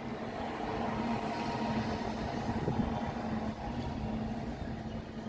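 WAG-9 electric locomotive hauling a freight train past, a steady hum over the rumble of wheels on rail, the covered hopper wagons following it by.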